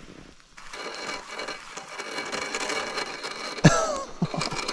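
Spinning reel being cranked, grinding and crackling as ice-caked braided line winds on through rod guides filled with ice. Near the end comes a short falling vocal sound, the loudest moment, followed by a few soft knocks.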